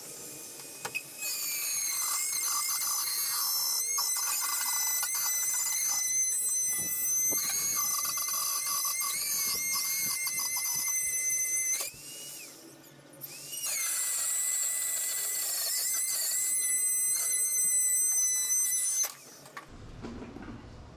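Handheld power tool whining at high speed as it cuts a speaker hole into the boat's fiberglass console, in two runs: about ten seconds, a short stop with the pitch dropping and rising again, then about six seconds more.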